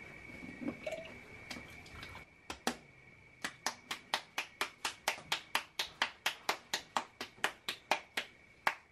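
Hands patting a ball of corn masa flat into a tortilla: a few scattered slaps, then from about three seconds in a quick regular run of sharp pats, about three or four a second.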